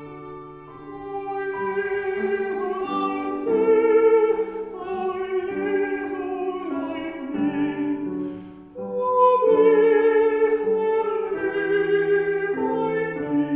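Countertenor singing a slow song with vibrato in a high voice, accompanied by violin and piano.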